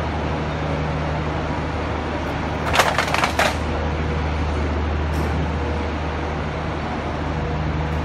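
Truck-mounted concrete mixer pump running with a steady low engine hum while it pumps concrete through the pipeline. A short rattle of sharp clicks comes about three seconds in.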